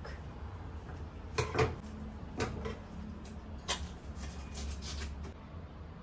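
A few short knocks and clicks of kitchen items being handled on a countertop, the loudest about a second and a half in, over a low steady hum.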